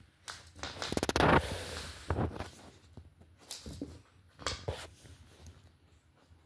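A puppy scuffling and rubbing about on a laminate floor close by: irregular rustles and light clicks, with a louder, dense run of rustling clicks about a second in.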